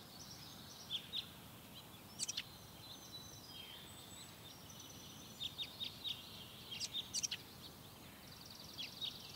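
Small songbirds chirping outdoors: short high chirps in scattered clusters, busiest about five to seven seconds in, and a rapid buzzy trill near the end, over a steady outdoor hiss.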